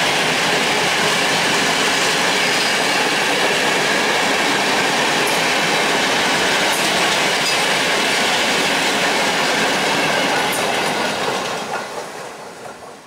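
Low-sided Eamos freight gondola wagons rolling past on their wheels with a steady, loud rail noise that dies away over the last two seconds as the end of the train goes by.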